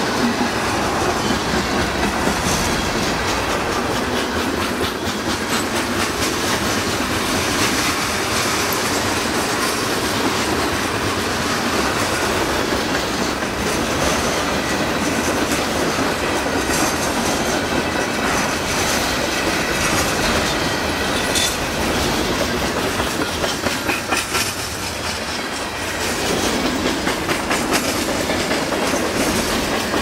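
CN freight train's covered hopper cars rolling past, a steady rumble and rush of wheels on rail with the clickety-clack of wheels over rail joints. It dips briefly quieter about three-quarters of the way through, then comes back up.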